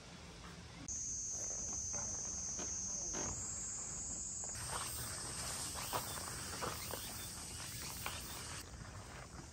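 A chorus of cicadas buzzing steadily and high-pitched. It starts about a second in, jumps up in pitch twice and stops near the end. Faint footsteps sound underneath.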